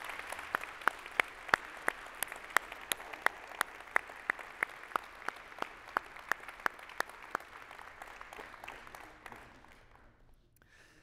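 Congregation applauding, with one set of loud, close claps standing out at about three a second. The applause dies away near the end.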